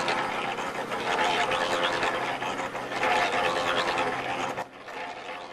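Portable cement mixer running, its drum turning as it churns mortar, a steady mechanical drone under a gritty rattle. It drops in level near the end.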